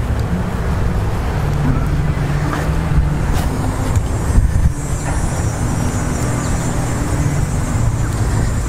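Wind rumbling on the microphone, with a low engine hum that comes and goes underneath.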